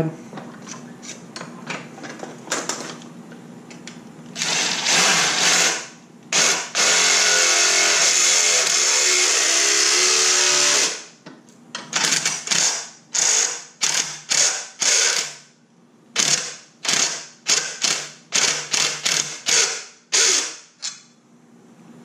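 Cordless drill with a step drill bit cutting through a thin metal panel held in a vise, widening a pilot hole for a 5/8-inch grommet. There is a short run, then a long continuous run of about four seconds, then a string of quick trigger bursts about two a second near the end.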